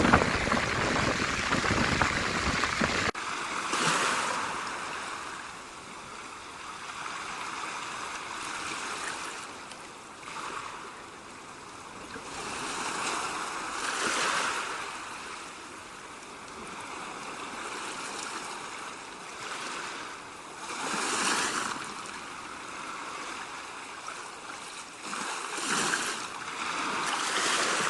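Sea surf breaking and washing in, swelling and easing every few seconds. Wind buffets the microphone with a heavy rumble for the first three seconds, then cuts off abruptly.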